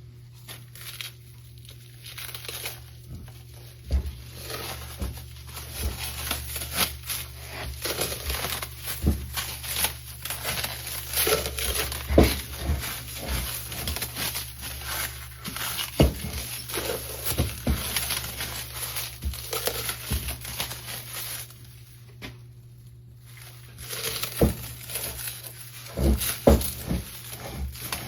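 Wrapping being crumpled and torn, with scattered sharp knocks and clicks of things being handled. The rustling stops for a couple of seconds about three-quarters of the way through, then starts again.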